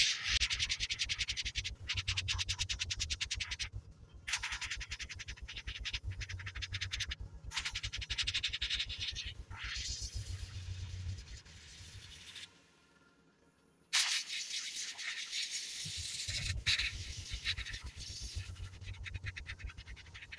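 Airbrush spraying acrylic paint in stretches of hissing air, with short breaks as the trigger is released, over the fast low pulsing of a small airbrush compressor. Both stop for about a second and a half about two-thirds of the way through, then start again.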